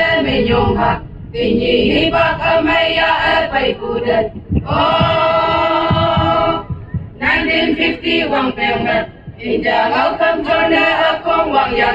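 A group of women singing together into microphones, amplified over loudspeakers, in sung phrases of two to three seconds with short breaks between them.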